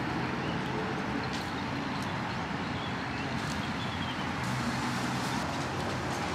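Outdoor street ambience: steady traffic noise with a few faint clicks.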